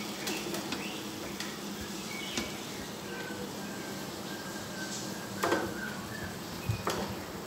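Chicken pieces sizzling in oil on a dosa griddle over a low flame, with a few light clicks.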